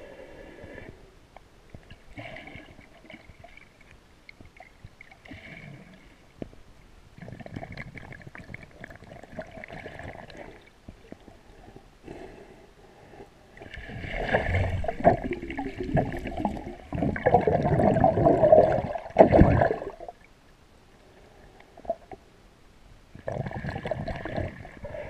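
Muffled underwater water noise picked up through a diving camera's housing: gurgling and rushing water in irregular surges, the longest and loudest a little past the middle.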